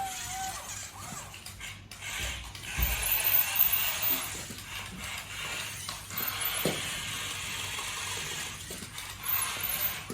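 Small electric motors and plastic gearboxes of radio-controlled toys whirring and ratcheting, with scattered clicks and knocks of plastic. The sound gets louder about two and a half seconds in.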